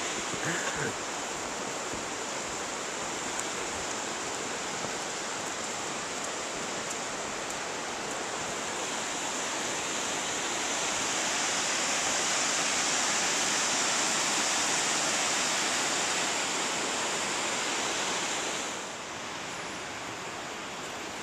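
Steady rushing of river water in the gorge below a suspension bridge, an even hiss without pitch that grows louder around the middle and drops off suddenly near the end.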